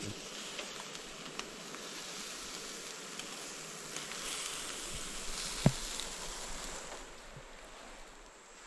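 Steady outdoor hiss of forest insects and a small running stream, with one sharp click a little past halfway; the hiss eases off slightly near the end.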